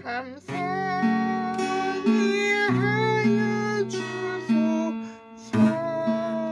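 A person singing a slow Korean hymn while strumming an acoustic guitar. The music eases off briefly about five seconds in, then a fresh strummed chord comes in.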